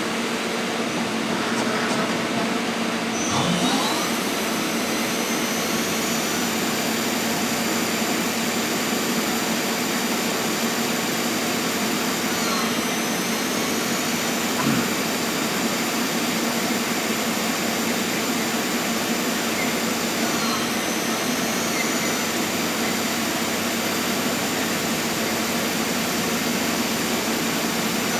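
Goodway GL25 CNC lathe running under power: a steady mechanical whir with a low hum and a high whine that shifts in pitch three times.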